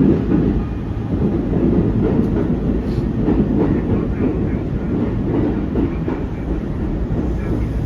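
Kintetsu 1810 series electric train heard from on board while running: a steady rumble of wheels on rail, with the clickety-clack of wheels passing over rail joints.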